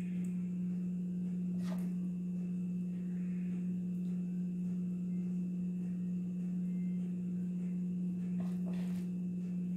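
A steady low hum, with a faint soft knock about two seconds in and another near the end.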